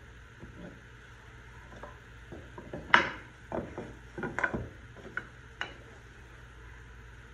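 Pieces of padauk and purpleheart hardwood knocking and sliding on a metal machine table as they are picked up, swapped and set down: one sharp knock about three seconds in, then a quick cluster of lighter clacks and two more single taps over the next two and a half seconds, over a faint steady hum.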